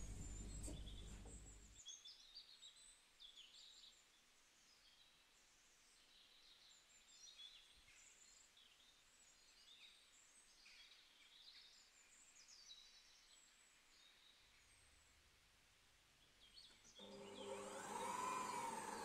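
A low hum that stops about two seconds in, then faint bird chirps through a long quiet stretch. About two seconds before the end a stand mixer's motor starts whisking cream, whirring with a pitch that rises and dips as the speed is set.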